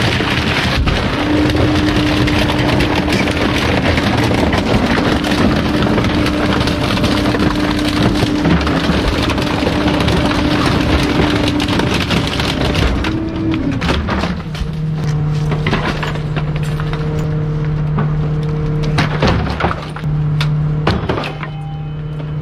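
Bulk waste truck's engine held at raised revs under a load of crunching and cracking debris. About 13 seconds in the engine drops back to a low idle, with scattered cracks and knocks after.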